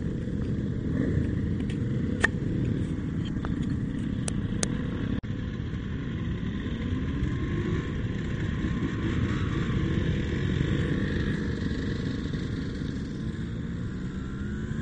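Small motorcycle engine running at low speed under a steady low rumble, its pitch rising and falling gently with the throttle. A few sharp clicks come in the first five seconds.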